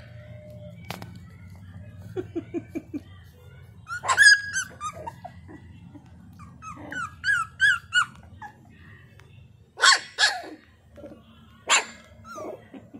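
Young puppies whining and yelping in several separate bursts: high-pitched whines and short rising squeaks, with a few sharp, loud yelps later on.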